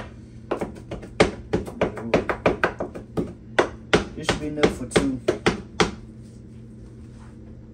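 Kitchen knife chopping fresh spinach on a wooden cutting board: a quick run of sharp knocks, about four a second, that stops about six seconds in.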